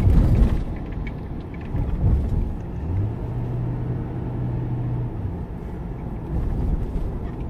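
A car driving, heard from inside the cabin: a steady low rumble of engine and road noise, with a low engine hum that holds for a couple of seconds near the middle.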